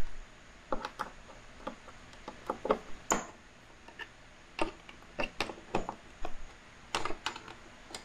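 Irregular small clicks and taps of a screwdriver working loose the metal screws that hold a jet ski's side sponson to the hull.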